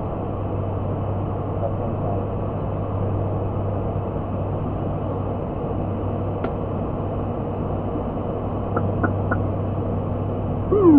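Steady drone of an ATR 72-600 turboprop airliner in flight, heard inside the cockpit, with a strong low hum. A few faint clicks come in the second half, and warbling music starts right at the end.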